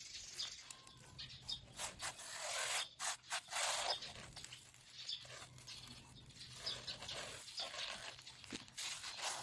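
Hands rubbing and pressing coarse salt onto a whole fish on a wooden cutting board: gritty scraping and rubbing in short uneven strokes, busiest a few seconds in.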